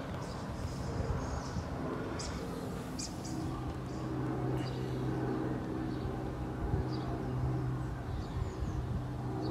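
A steady low motor hum, with a few short bird chirps over it.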